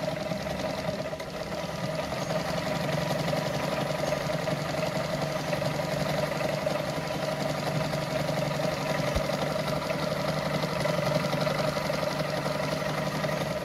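Brother Pacesetter Super Deluxe sewing machine running steadily, stitching decorative pattern number 4 through denim.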